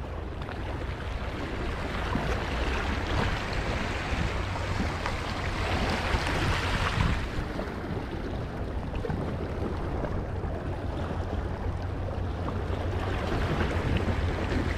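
Small harbour waves lapping and washing over a sandstone rock shelf, with wind buffeting the microphone as a steady low rumble. The wash swells briefly louder about six seconds in.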